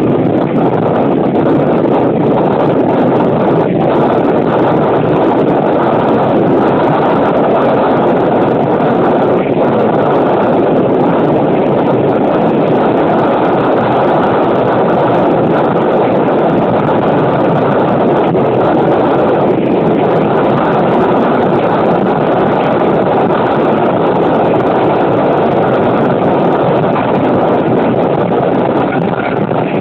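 Wind buffeting the microphone held out of an open window of a moving KiHa 205 diesel railcar, a steady loud rush with the railcar's running noise beneath it.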